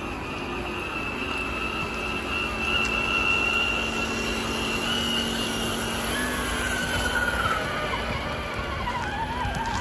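Scale RC crawler truck's electric motor and gearbox whining as it drives: a steady high whine, joined about six seconds in by a second whine that wavers up and down with the throttle.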